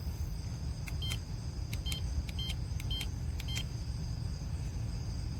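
Wyze Lock Keypad buttons pressed one after another, each press giving a click and a short high beep, about five presses in quick succession as a code is entered.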